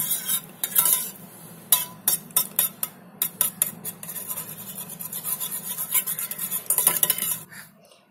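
A steel spoon beating raw eggs in an enamel bowl: rapid, irregular clinks of the spoon against the bowl, pausing briefly near the end.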